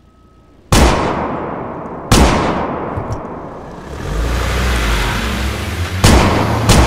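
Pistol shots, loud with long echoing tails: two about a second and a half apart, then a low rumble swelling, then two more shots in quick succession near the end.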